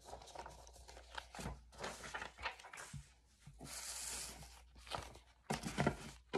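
Paper and small objects being handled and sorted: rustling and light knocks, with a tearing sound about a second long midway and a denser cluster of knocks near the end.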